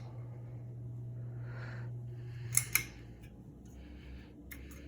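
Westinghouse Crusader ceiling fan motor humming steadily while its pull-chain speed switch is worked: sharp clicks about two and a half seconds in and again near the end, and after the first clicks the hum drops lower as the fan is switched toward low speed.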